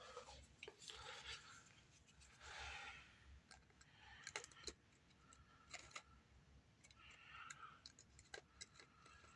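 Faint scattered clicks and short rustles of a plastic flashlight being handled, with batteries just fitted, as it is put back together.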